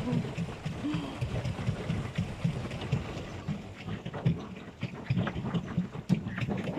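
Wind buffeting the microphone on a moving pedal boat: an uneven low rumble that comes and goes, over light noise from the boat on the water, with a few faint clicks near the end.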